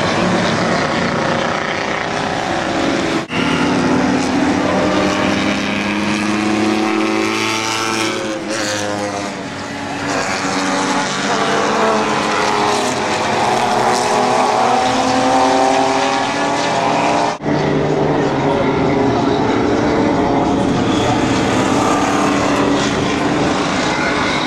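Several race car engines at racing speed on a circuit, their pitch rising and falling as they accelerate and pass. The sound breaks off for an instant twice, about three seconds in and again near seventeen seconds.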